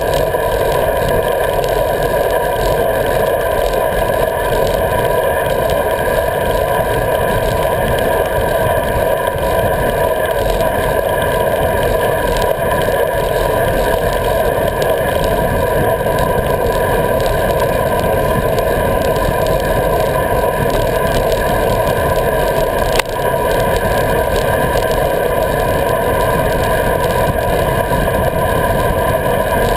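Steady rush of wind and road noise picked up by a GoPro on a moving road bike, with a constant hum-like ringing from the camera housing. There is one brief tick about three quarters of the way through.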